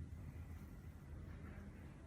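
Faint room tone: a quiet, steady low hum with no distinct sounds.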